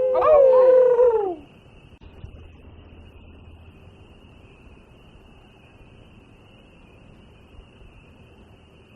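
A single long howl, held steady and then sliding down in pitch as it fades about a second and a half in. After it only a faint, steady, high-pitched chirring remains.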